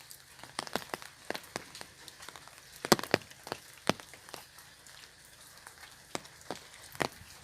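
Raindrops falling on an umbrella: scattered, irregular taps of varying loudness, a few each second, over a faint steady hiss, with one louder tap about three seconds in.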